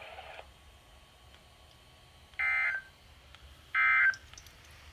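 Two short, identical bursts of Emergency Alert System (SAME) digital data, a harsh high-pitched warbling buzz about 1.3 seconds apart and each under half a second long. Bursts this short are the end-of-message (NNNN) code that closes the weekly test.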